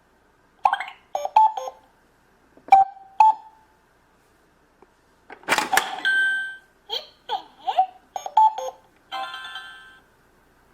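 Toy electronic cash register playing short electronic beeps, chimes and little jingles in separate groups. A louder burst with sliding tones comes about halfway through, and a held chord-like tone comes near the end.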